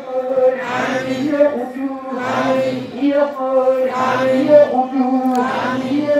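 Islamic religious chanting of a supplication: a voice intoning in short, evenly paced phrases that recur over and over on a few held notes.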